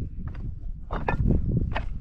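A hiker's footsteps on the trail, a step about every two-thirds of a second, over a steady low rumble.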